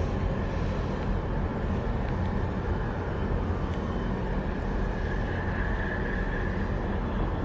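Harbour tugboat's diesel engine running steadily as the tug passes close by, a low, even rumble.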